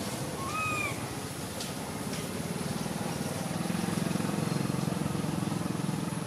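A single short arched call from a baby macaque, rising then falling, comes about half a second in. It sounds over a steady low rumble that grows louder in the second half.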